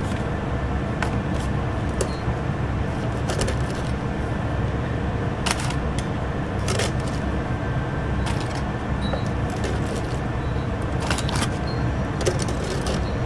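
Metal tongs clinking against a wire fryer basket while sauced fried chicken is tossed and scooped out, a scattered sharp clink every second or two. Under it a steady low machine hum.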